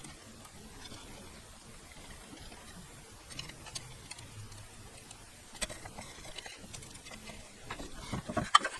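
Electric scroll saw running faintly with a light ticking clatter from its spiral blade cutting wood, with a few sharper clicks near the end.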